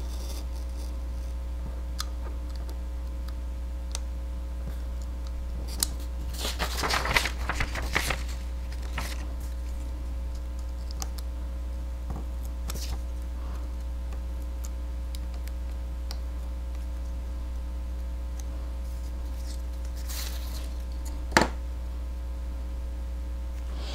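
A craft knife and a paper template being worked over a cutting mat: short spells of scraping and paper rustle, a longer one about a quarter of the way in and a brief one near the end, followed by a single sharp click. A steady low hum runs underneath.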